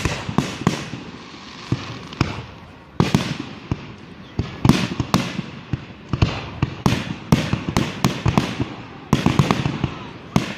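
Fireworks exploding: a long run of sharp bangs, some single and some in rapid clusters, each trailing off in an echoing decay.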